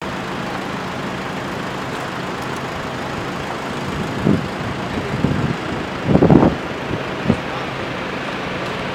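Steady city street traffic noise, with a few short louder bursts between about four and seven and a half seconds in.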